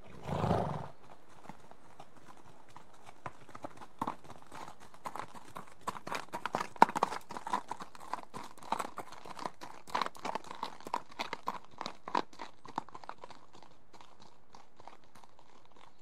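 Two horses walking past on gravel, their hooves clopping and crunching in an uneven patter that builds, peaks in the middle and fades away. About half a second in, one of them gives a short snort.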